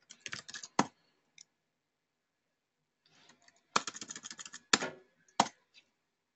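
Typing on a computer keyboard: a quick run of keystrokes in the first second, then after a pause of about three seconds another run, with a few harder single key presses standing out.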